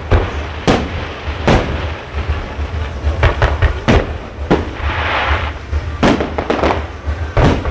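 Fireworks display: a rapid series of shell bursts, about a dozen bangs each trailing off in an echo, over a steady low rumble, with a stretch of crackling glitter about five seconds in.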